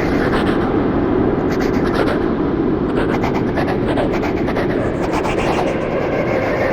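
Creepy echo horror sound effect: a dense, steady, echoing rumble with a scraping, grinding texture running through it.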